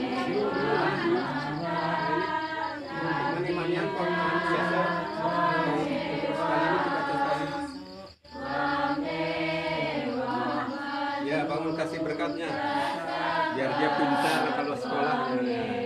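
Voices chanting together in long held, sung notes, like a prayer chant. There is a brief break about eight seconds in.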